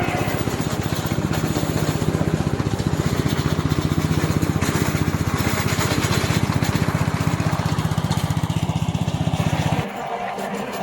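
Loncin 9 hp single-cylinder petrol engine of a remote-control tracked lawn mower running steadily with a fast, even pulse. Just before the end it drops abruptly to a quieter running sound.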